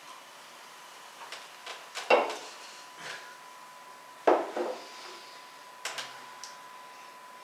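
Drinking glasses and soda cans knocking and being set down on a wooden table, in a string of short clinks with two louder knocks about two seconds and four seconds in. A faint steady tone runs underneath.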